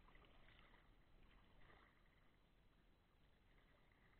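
Faint kayak paddle strokes: the blade dipping and pulling through calm river water, with soft swishes about half a second and a second and a half in, and again near the end.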